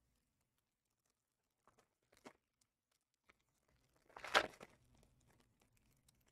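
Trading-card foil pack wrappers being handled and torn: faint crinkles about two seconds in, then a louder, brief tearing rustle just past the middle.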